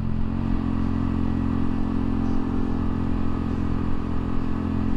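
Honda Monkey minibike's single-cylinder engine, fitted with an upgraded cam and a flashed ECU, running at a steady cruising speed with an even note that neither rises nor falls.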